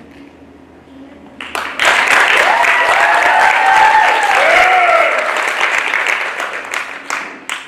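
Audience applauding, starting about two seconds in and fading near the end, with a few voices whooping over the clapping.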